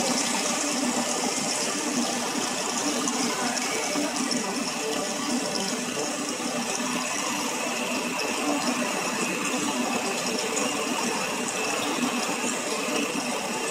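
Live electronic keyboard music playing a dense, rattling noise texture over a low held tone, with a bright hiss coming in at the start.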